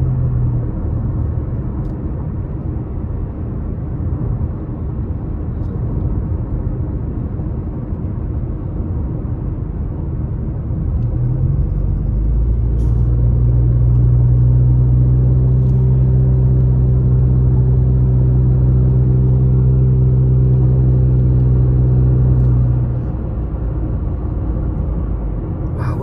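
Road noise inside a moving car: a continuous low rumble from the engine and tyres. A steady low hum comes in about eleven seconds in, holds at one pitch, and drops away a few seconds before the end.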